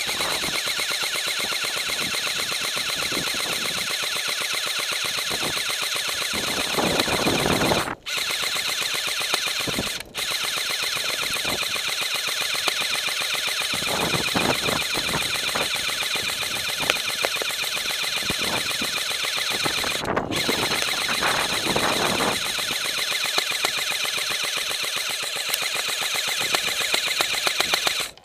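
Airsoft M249 electric gun firing long full-auto bursts, a rapid steady rattle of shots with a motor whine, broken by three brief pauses.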